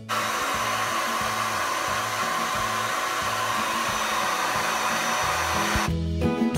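Electric air blower running steadily, forcing air into a black PVC inflatable chair to inflate it; it cuts off about six seconds in.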